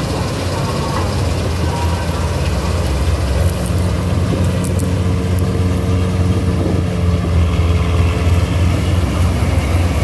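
Syan 998 combine harvester running under load while harvesting wheat: its engine and threshing machinery make a steady low drone, with a faint steady whine for a few seconds in the middle.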